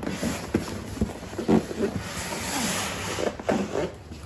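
Cardboard shipping box and foam packing being handled: scraping and rubbing of cardboard with a few knocks, and a stretch of rustling partway through.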